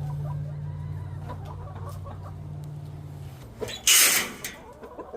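Backyard hens clucking over a steady low hum that stops about three and a half seconds in, with one loud, brief rustling burst about four seconds in.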